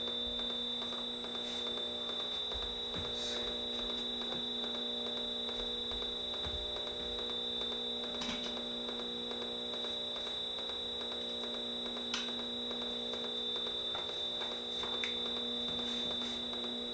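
Amplified electronic drone from small amplifiers: a steady electric hum with a high, steady whine over it, and a few faint clicks and taps scattered through.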